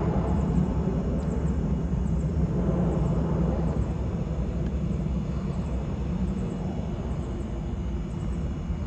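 Distant jet airliner engines rumbling as the aircraft pass on approach, a steady low rumble that slowly fades.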